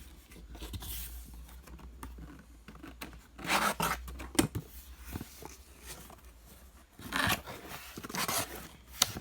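A cardboard box being opened and unpacked: cardboard and packaging scraping, tearing and rustling, with a few sharp clicks. There are two louder spells of handling, about three seconds in and again about seven seconds in.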